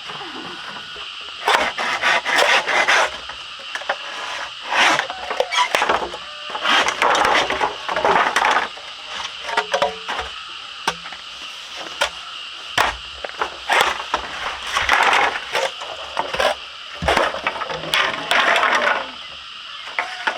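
Bamboo being worked by hand: irregular rasping, scraping strokes of a tool on bamboo, some with a squeak. A steady high-pitched drone runs underneath.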